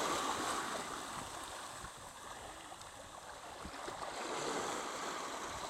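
Sea water washing, a steady rush of waves that fades about two seconds in and swells again near the end.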